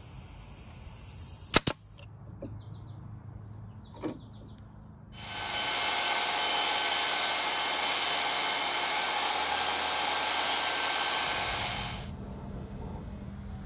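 A table saw ripping a thin strip of plywood: steady loud cutting noise with a motor whine that starts about five seconds in and stops about seven seconds later. Two sharp clicks come before it, about one and a half seconds in.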